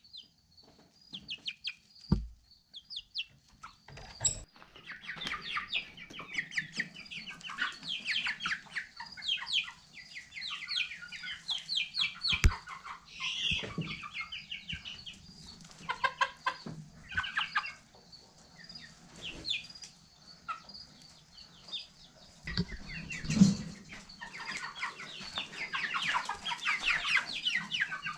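A flock of chickens clucking and calling, many short calls overlapping, with a few sharp knocks in between.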